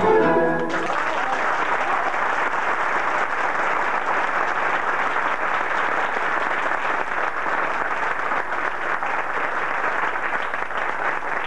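A child soloist's singing ends with the song within the first second, then the audience applauds steadily.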